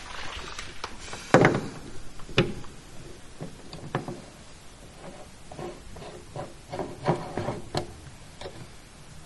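A push-type bathtub drain stopper being pressed by finger, opening and closing with a series of short clicks and knocks, the loudest about a second and a half in.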